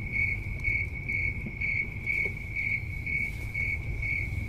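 A high, even chirp repeating about twice a second, over a steady low car-cabin rumble.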